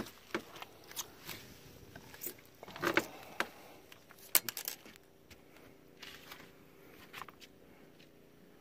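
Scattered light clicks, taps and rattles of handling, with a short cluster about four and a half seconds in, over a faint steady hum.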